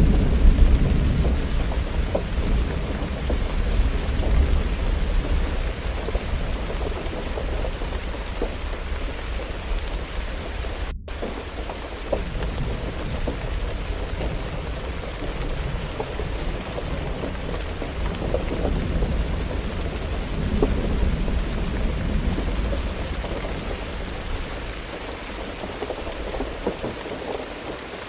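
Steady rain with rolling thunder: a loud low rumble at the start fades away over several seconds, and another rumble swells about twenty seconds in. There is a split-second gap in the sound about eleven seconds in.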